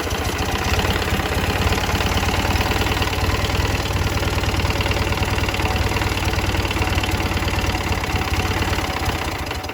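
Ural motorcycle's flat-twin engine running steadily at idle just after firing up, with a knock in the engine.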